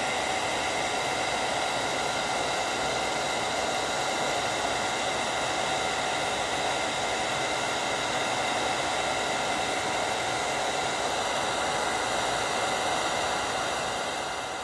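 Handheld Revlon hair dryer running steadily: a constant rush of air with a steady motor whine. It begins to die away at the very end as it is switched off.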